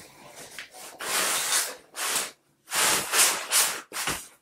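Summer Infant 3D Lite umbrella stroller being pulled open from folded: its frame and fabric seat rub and scrape in several short bursts as it unfolds.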